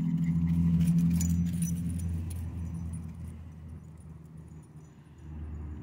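A passing car's low engine hum, loudest about a second in and then fading away. Over it, in the first couple of seconds, the metal tags on a running dog's collar jingle.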